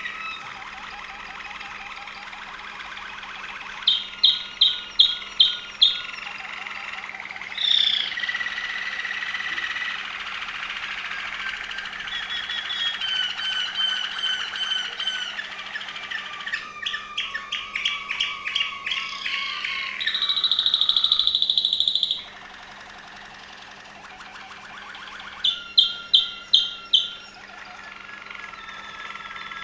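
Waterslager (Malinois) canary singing a continuous, varied song of trills, gliding whistles and rolling phrases. Twice it gives a run of five or six loud, evenly spaced notes, and about two-thirds of the way through it holds a loud, rapid, high trill for about two seconds.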